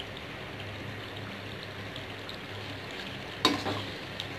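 Chicken karahi gravy sizzling in the pan, with a metal spatula clanking against the pan once about three and a half seconds in.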